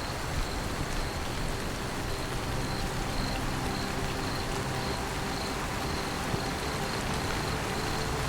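Steady rain falling, an even hiss, with a faint high-pitched pulsing tone running through it.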